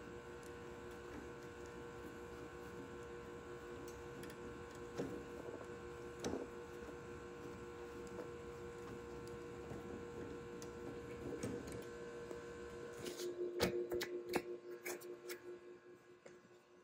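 Hand threading die in a die stock being worked on a metal rod clamped in a bench vise: faint scattered clicks and scrapes, with a cluster of sharper clicks about thirteen seconds in. A steady hum of several tones runs underneath.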